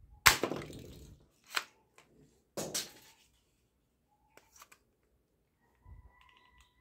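Plastic toy blasters being handled: a loud sharp plastic clack about a quarter second in with a short rattle after it, two more clacks over the next couple of seconds, then a few light clicks.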